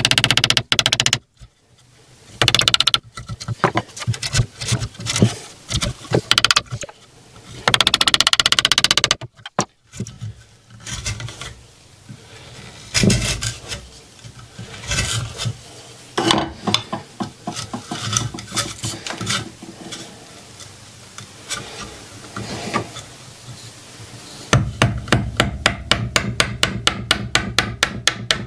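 Wood chisel cutting into a board: irregular knocks as the chisel is driven in and scraping as wood is pared away, ending in a quick even run of taps at about seven a second.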